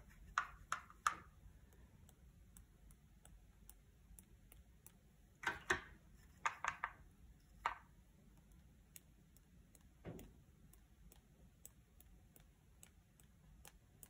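Faint, scattered light clicks and taps of a paintbrush against a metal watercolour paint tin, a few in quick succession near the start, another cluster about halfway through and one more later, with quiet room tone between.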